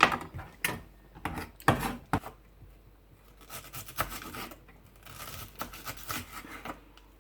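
Kitchen knife working on a wooden chopping board: a few sharp knocks in the first two seconds, then a run of quick scraping strokes.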